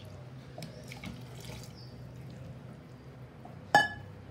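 Thick sambar being stirred with a spatula in a pot, a soft wet sloshing over a low steady hum. A little under four seconds in comes one sharp clank with a brief metallic ring, the spatula knocking against the pot.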